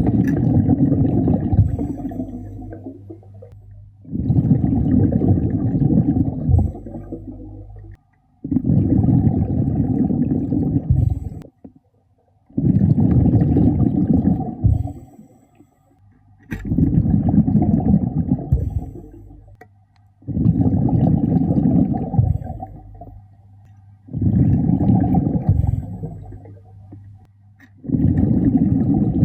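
A scuba diver's exhaled air bubbling out of the regulator, heard underwater: a low, gurgling rush about every four seconds, eight times, with short quiet breaths in between.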